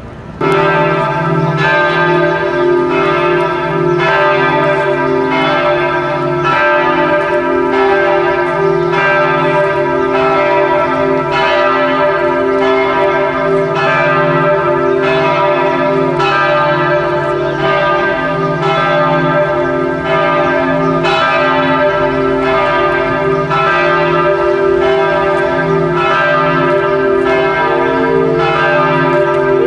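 Berlin Cathedral's church bells ringing together: loud, overlapping strokes about once a second over a steady hum of ringing tones, starting abruptly about half a second in.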